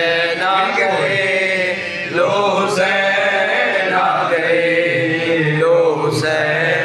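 A man singing a devotional Urdu poem (manqabat) unaccompanied into a microphone, drawing out long wavering notes with short breaks about every two seconds.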